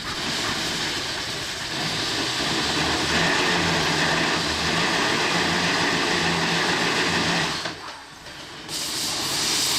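Erie Type A steam shovel's steam engine working, a steady hiss of steam with a low, regular beat. The sound drops away for about a second near the end, then the hiss comes back.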